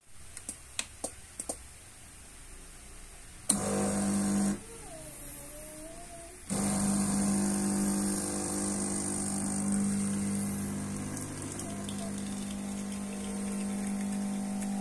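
Espresso machine pump pulling a double shot of espresso. A few light clicks come first. Then the pump starts with a sudden hum about three seconds in, stops after about a second, and comes back on about halfway through to run steadily.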